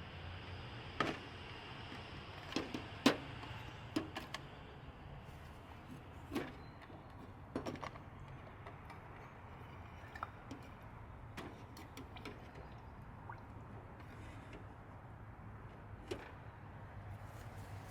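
Scattered metallic clicks and knocks as small Bendix Stromberg carburetor parts (jets and venturis) are handled and dropped into a can of carburetor cleaner, the loudest about three seconds in. A faint steady hum runs underneath.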